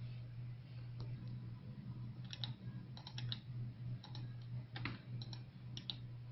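Computer mouse clicking, a few sharp clicks in short quick clusters, over a steady low hum.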